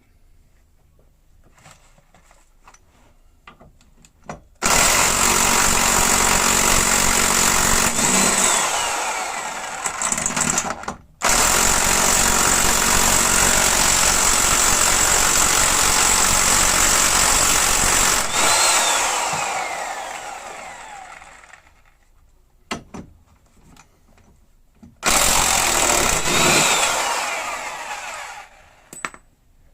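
Impact wrench running in three long bursts on a steering-rack mounting bolt, the middle one the longest and trailing off, each ending in a falling whine as the motor spins down. The bolt won't come out because the captive nut in the body has broken loose and turns with it.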